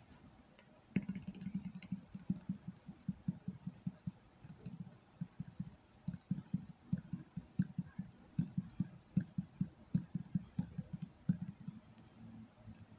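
Fingertips tapping quickly on an object, a fast run of short dull low-pitched taps, several a second, starting about a second in.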